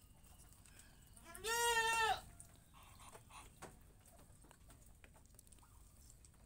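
A goat bleats once, a single wavering call lasting just under a second, about a second and a half in.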